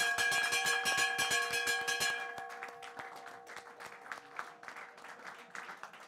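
Brass bell on a stand, rung rapidly by its rope: quick strikes over steady ringing tones stop about two seconds in and the ringing dies away. Applause carries on through the rest.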